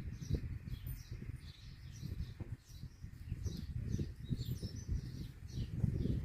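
Small birds chirping over and over, short high calls repeating, above a steady low rumble.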